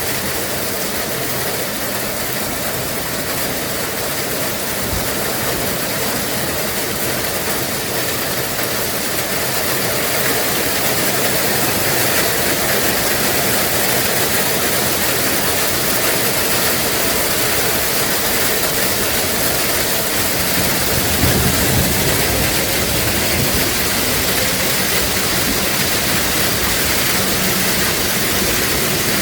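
Diesel locomotive engine running steadily, growing a little louder about a third of the way in.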